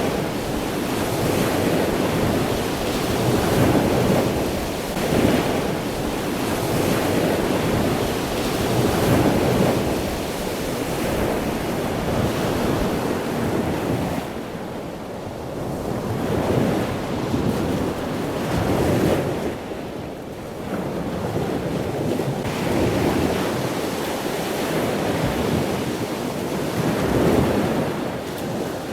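Surf washing onto the shore, the noise swelling and easing every few seconds, with wind blowing across the microphone.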